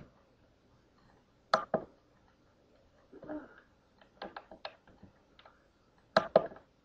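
Sparse clicks and key taps at a computer keyboard: a pair about a second and a half in, a quick run of lighter taps in the middle, and a louder pair near the end, with a soft rustle about three seconds in.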